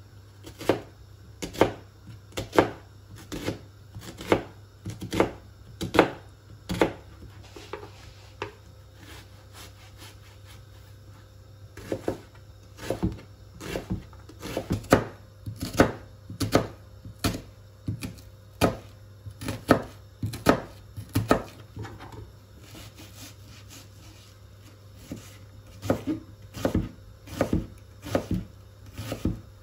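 A knife chopping an onion finely on a plastic cutting board: sharp strokes of the blade on the board, about one to two a second, with two pauses of several seconds.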